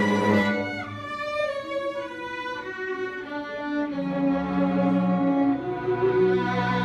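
String ensemble playing a slow passage of sustained violin and cello notes, softer in the middle and fuller again about four seconds in as lower notes come in.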